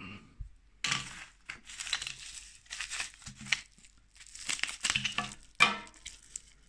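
Plastic coin packaging crinkling and rustling in irregular bursts as it is handled and cut open with scissors, with one sharper crack late on.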